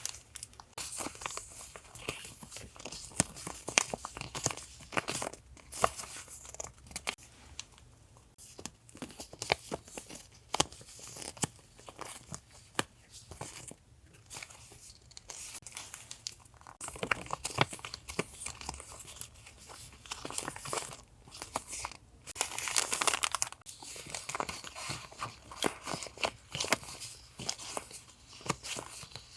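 Sticker and paper-goods packaging being handled and unwrapped: a run of crinkling and rustling with small clicks and taps, and a longer, denser rustle about 22 seconds in.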